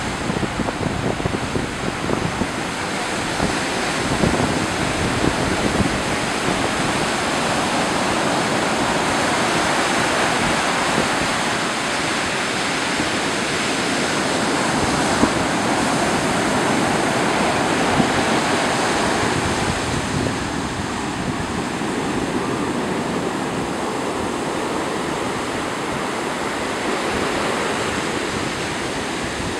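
Ocean surf breaking and washing up over a sandy beach: a continuous rushing wash that grows fuller through the middle and eases somewhat in the last third.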